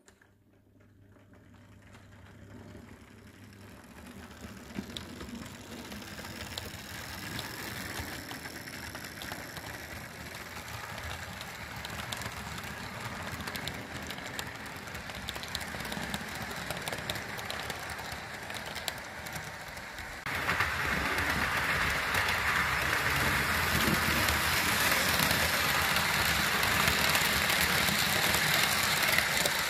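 Analog DC HO-scale model train running along the track: motor hum and rapid clicking of wheels over rail joints and points, growing louder over the first few seconds. About twenty seconds in the sound jumps abruptly louder as the coaches roll close past.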